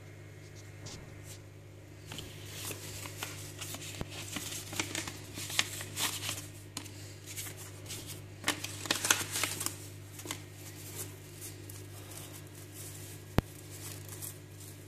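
Paper rustling and crinkling as a paper envelope and tissue wrapping are handled and opened, in irregular bursts that are busiest in the middle. A single sharp click comes near the end, over a steady low hum.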